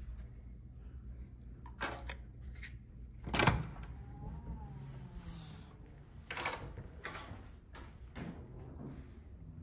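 A hotel room door being handled: a few knocks and latch clicks, the loudest about three and a half seconds in, over a low steady hum.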